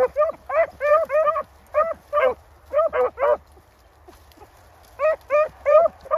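Hunting dog barking on a rabbit chase: quick runs of short, yelping barks that rise and fall in pitch, about a dozen in the first three and a half seconds, then a brief pause and four more near the end.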